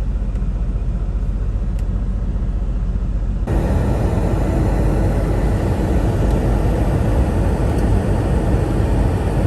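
Semi truck's engine running, heard as a steady low rumble from inside the cab. About three and a half seconds in, the noise abruptly turns louder and fuller.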